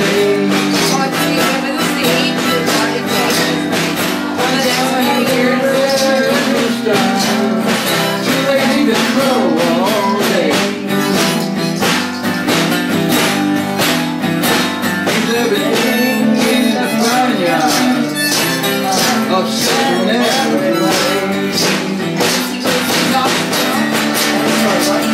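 Live blues performance: acoustic guitar strummed in a steady rhythm, with vocals into microphones and a tambourine shaken along.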